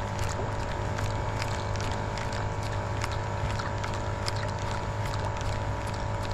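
A small boat's motor humming steadily, with scattered light clicks over it.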